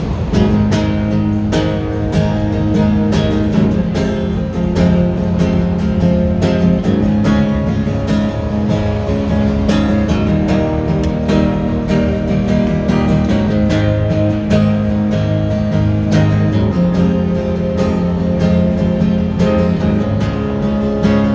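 Acoustic guitar strumming chords in a steady rhythm, playing the instrumental intro of a song.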